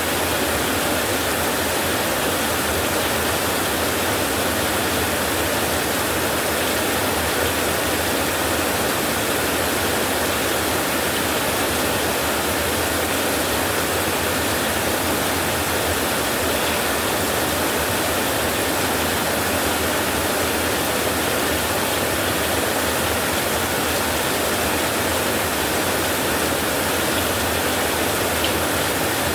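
Heavy rain falling steadily on a tin roof, a dense, even hiss with no single drops or thunderclaps standing out.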